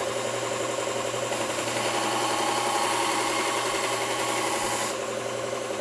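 Belt grinder motor running steadily while a steel chisel's bevel is ground on the moving abrasive belt. The grinding rises from a little over a second in and stops suddenly about five seconds in, leaving the motor running alone.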